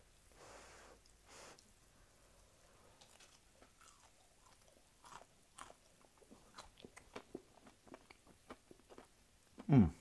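Close-mouthed chewing of crunchy oven-roasted potatoes: faint crunches and mouth clicks, about two a second. Just before the end, a short loud falling tone.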